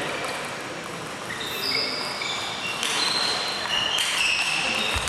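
Table tennis balls clicking off tables and bats: a few sharp ticks spaced about a second apart, each leaving a short high ring.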